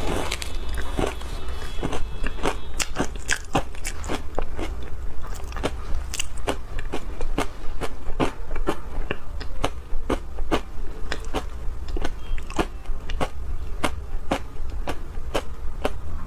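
Close-miked chewing of crunchy refrozen shaved ice coated in matcha powder: a steady, irregular run of sharp crunches, about two to three a second.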